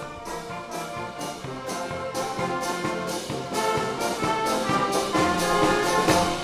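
Brass band playing, trumpets and trombones carrying the tune over a steady percussion beat, growing gradually louder.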